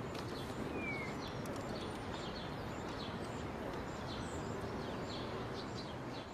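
Outdoor ambience: a steady background hiss with small birds chirping again and again, and one short falling call about a second in.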